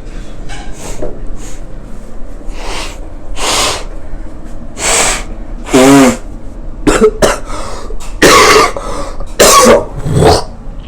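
A congested person coughing and clearing their throat in a long fit: about a dozen harsh bursts, some voiced, the loudest from about six seconds on.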